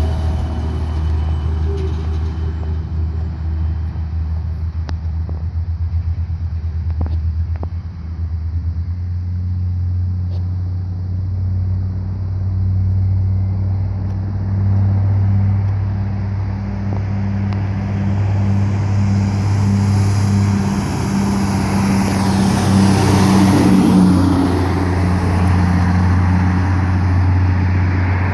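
Heavy diesel trucks, a Freightliner FL112 car hauler and a Peterbilt 359 wrecker, driving by on a busy road: a steady low engine drone with traffic noise, swelling to a louder rush of engine and tyres as a truck passes close about three-quarters of the way through.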